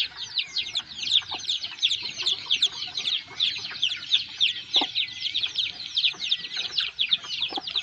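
A brood of week-old chicks, crosses of Sumatran red junglefowl (F2) and village chicken, peeping continuously: many short, high-pitched cheeps that slide downward in pitch, several a second, overlapping one another.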